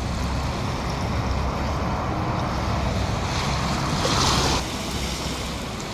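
Ocean surf washing ashore, with wind buffeting the phone's microphone in a low rumble; a louder rush of water about three to four and a half seconds in.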